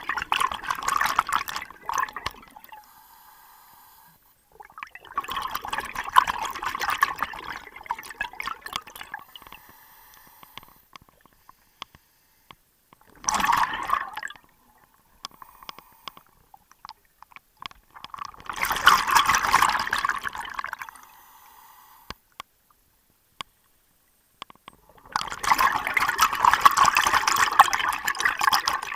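Scuba diver's exhaled breath bubbling out of the regulator underwater, in five bursts of bubbling a few seconds apart, with quieter gaps between.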